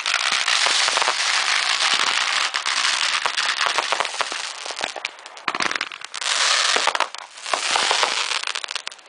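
Consumer fireworks crackling: a dense run of rapid pops for about five seconds, then thinning out, with short lulls and scattered pops after.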